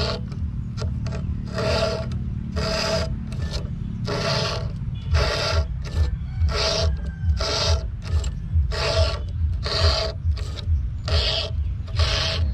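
A round file rasping across the cutters of a Stihl chainsaw chain to sharpen it, with one stroke about every second. A steady low rumble runs underneath.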